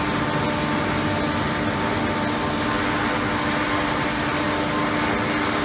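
Construction-site machinery running steadily: a constant rushing noise with an even, unchanging hum in two pitches.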